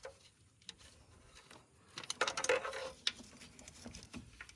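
Light metallic clinks and scraping of spark plugs and hand tools being handled in an engine bay, scattered at first and busiest about two to three seconds in.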